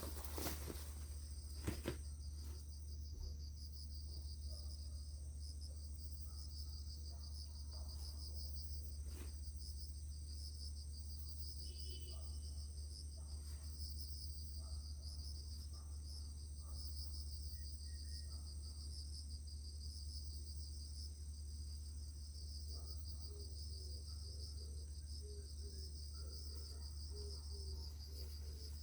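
Insects trilling steadily in fast, even pulses, with a thin high continuous tone above them, over a low steady hum; a couple of sharp clicks about two seconds in.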